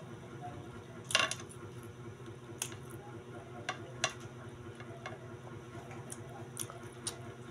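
Scattered short clicks and crinkles of the aluminium foil lining a plate as battered quail eggs are picked up by hand, the loudest a brief crackle about a second in.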